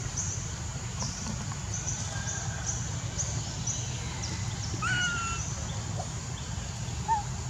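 Outdoor ambience: short high chirps repeating about twice a second, a couple of brief whistled calls about five seconds in and a short squeak near the end, over a steady low rumble.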